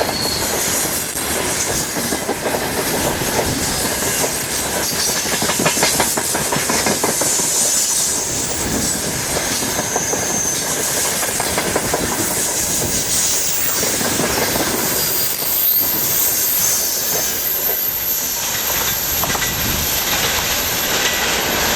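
Freight train of gondola wagons rolling past at about 60 km/h: steady rolling noise of the wheels, with clickety-clack over the rail joints and thin, high wheel squeal that comes and goes.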